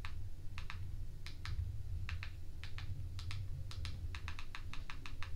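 Buttons on a handheld remote control clicking, press after press at an uneven pace of about two or three a second, sometimes in quick pairs, while the cursor is stepped across an on-screen keyboard. A steady low hum runs underneath.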